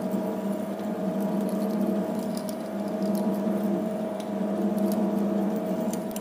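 Metal lathe running, a twist drill in the tailstock chuck boring into a spinning aluminium knob: a steady motor hum with light, scattered ticking from the cut. The hole is being drilled at 6.5 mm to take a shaft.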